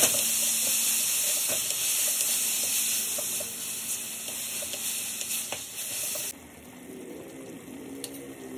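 Beech and oyster mushrooms sizzling in a hot wok while a wooden spatula stirs and scrapes them, with a loud hiss and scattered scrapes. About six seconds in, the sizzle drops suddenly to a quieter simmer as the mushrooms cook in their sauce.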